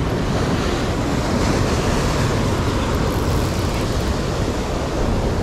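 Heavy sea surf breaking and washing over rocks: a loud, steady rushing noise.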